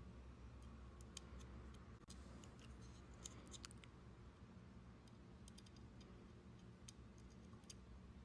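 Near silence with faint, scattered small clicks over a low steady hum: a small screw and screwdriver being worked into a TV cooling fan's housing by hand.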